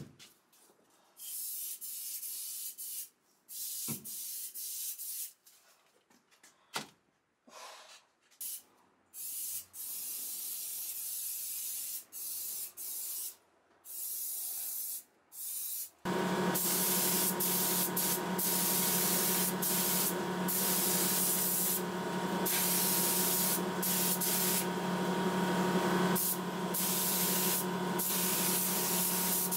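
An aerosol spray can hissing in short bursts, then, from about halfway, a compressed-air paint spray gun hissing continuously with a steady hum underneath.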